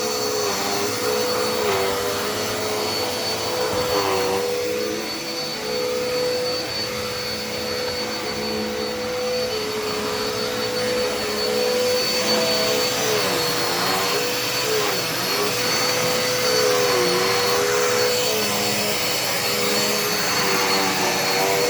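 Dirt Devil Endura Reach vacuum cleaner running steadily with a thin high whine, its motor pitch dipping briefly several times.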